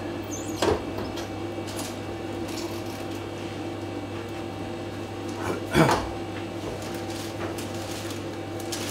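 Small knocks and clatter of things handled on a kitchen counter, with one louder clatter about six seconds in, over a steady electrical hum.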